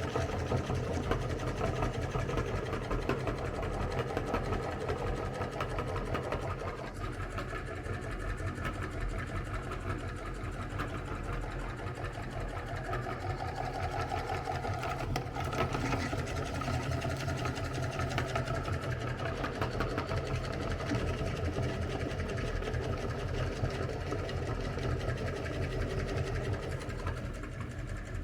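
Electric meat grinder running steadily, its motor humming with a fast, even rattle, presumably as ice cream is fed through it.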